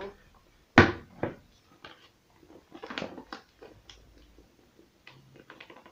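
A sharp knock about a second in as a plastic mixing bowl is set down on a wooden table, followed by scattered soft taps and rustles of a flour bag being handled while flour is poured into the bowl.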